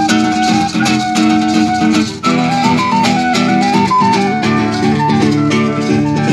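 Small acoustic group playing an instrumental tune: a recorder carries the melody over a strummed acoustic guitar and a shaker rattling in rhythm. The melody holds one note, breaks off briefly about two seconds in, then moves in steps up and down.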